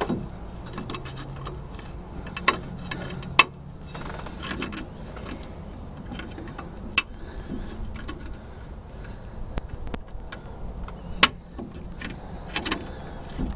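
Hose pliers clicking and scraping against a steel drum-brake backing plate as they squeeze a retainer's spring tabs, with a few sharp metal clicks spread through. A low steady hum sits underneath for the first few seconds.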